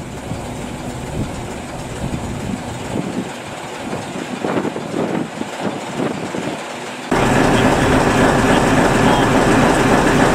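Diesel shunting locomotive's Gardner engine running at idle, with scattered clanks and knocks; about seven seconds in it jumps suddenly to a much louder, close, steady engine sound.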